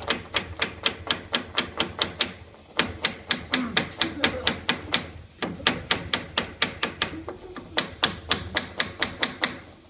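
Small hammer rapidly tapping tacks into a wooden post, about five light, sharp taps a second, in runs broken by two short pauses.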